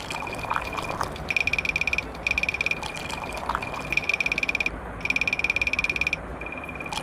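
An animal's fast pulsed trilling call, about twenty pulses a second, repeated in bouts of roughly a second with short breaks.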